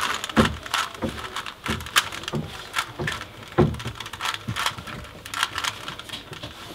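A 3x3 Rubik's cube being turned quickly by hand: a run of irregular plastic clicks and rattles, several a second, as its layers are twisted.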